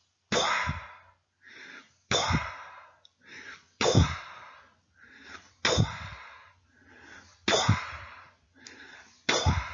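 A man imitating with his voice the decrescendo diastolic murmur of aortic regurgitation: six breathy hissing sounds, each starting sharply and fading away, about every 1.8 seconds, with a softer sound between each. He likens it to an echo fading in a cavern.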